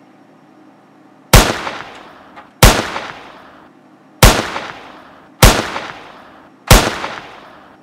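Five pistol gunshots from a sound-effect recording, each a sharp crack trailing off over about a second, spaced a little over a second apart.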